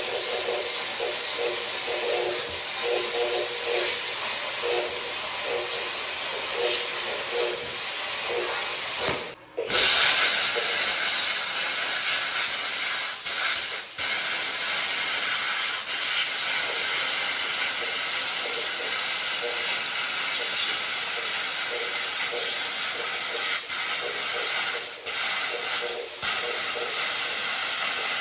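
Plasma cutter cutting steel plate: a steady, loud hiss of the air-plasma arc. It cuts out briefly about nine seconds in and starts again, with a few short drops later.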